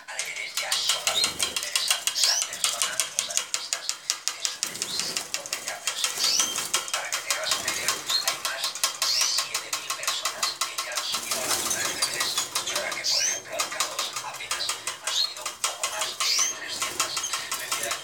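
Domestic canaries singing in a cage: a dense, rapid trill runs without a break, with short rising chirps recurring over it.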